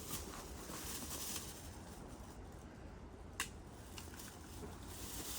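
Faint steady background noise with one sharp click about three and a half seconds in.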